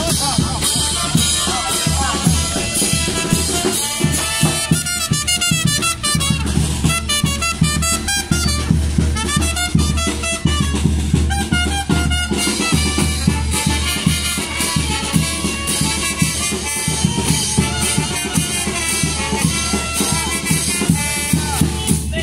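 Brass band music with trumpets over a steady drum beat.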